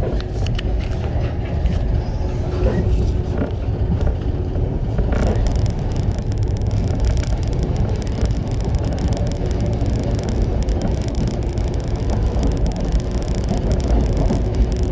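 JR 115 series electric train running, heard from inside the car: a steady rumble of wheels and traction motors, with a few sharp clicks early and a brighter hiss of track noise from about five seconds in.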